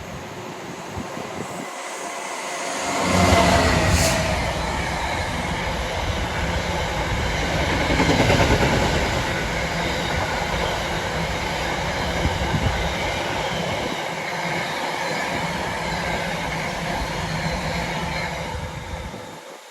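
A freight train passing close by on the rails. It swells to its loudest a few seconds in as the locomotive goes past, then the wagons run by steadily for over ten seconds before the sound drops away near the end.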